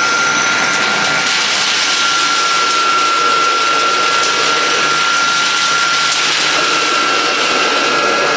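Stainless-steel peanut butter grinder (colloid mill) running while grinding peanuts into paste: its electric motor and grinding head make a loud, steady grinding noise with an even high whine.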